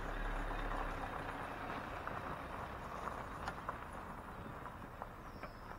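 A motorhome towing a small trailer pulling away over gravel, its engine and tyres fading steadily as it drives off, with a few faint crunches from the gravel.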